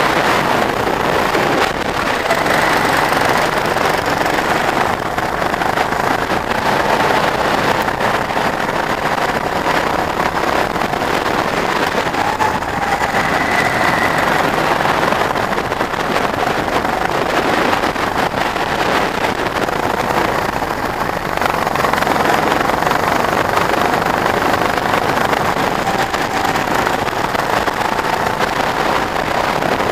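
Go-kart running at speed, heard from onboard with wind noise on the microphone; its engine pitch wavers gently up and down through the corners.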